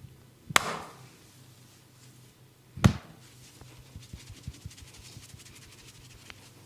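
Two loud hand slaps on the body during a massage, a little over two seconds apart, the second with a deep thud. They are followed by a run of faint, quick taps.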